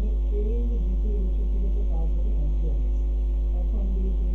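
Steady low electrical hum on the recording, like mains hum, with a faint voice wavering in the background.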